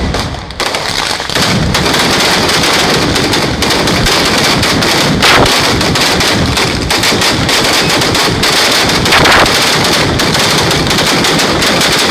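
Mascletà: a dense, unbroken barrage of ground-level firecrackers (masclets) going off in rapid succession, loud crackling bangs with no break. A couple of heavier bangs stand out in the middle.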